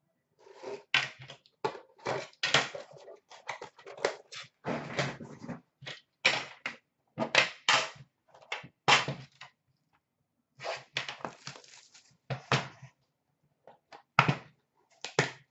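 Hands opening a metal trading-card tin and lifting out its contents: irregular clunks, scrapes and rustles of the lid and packaging, with a short lull about ten seconds in.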